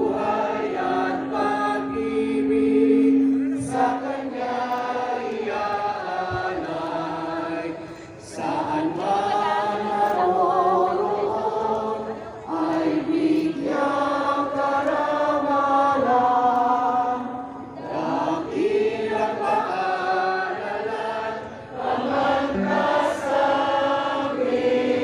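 Many voices singing together in a slow, chant-like song, in long phrases with brief breaks between lines, over a low held note in the first few seconds.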